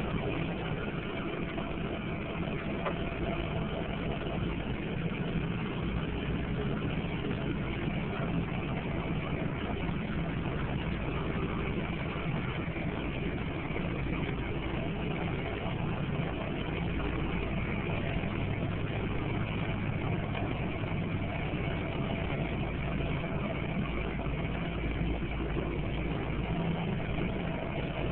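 Steady engine drone with machinery noise, heard from inside the cab of a GMC 2500HD Duramax diesel pickup pushing a homemade front-mounted snowblower that is running and throwing snow.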